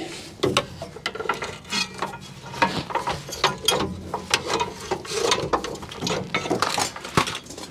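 Irregular metallic clicks, rattles and clanks of hand work under a car, as a steel parking brake cable is worked out of its clamps.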